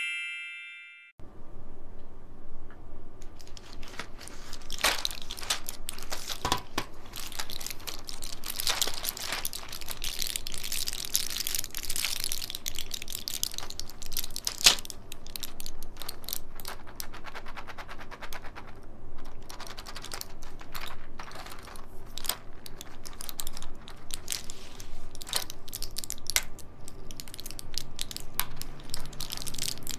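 Clear plastic blister trays of Smarties being handled and flexed, with candies pressed out through the foil backing: many small irregular crackles, clicks and rustles of plastic and foil. It opens with the fading end of a chime.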